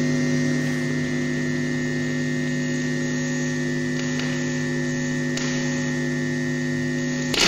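Steady electrical hum of several held tones from a sound sculpture: a metal rod pushed into a bucket of compost and wired to an amplifier. There are a few faint ticks, and near the end it breaks suddenly into a loud crackle.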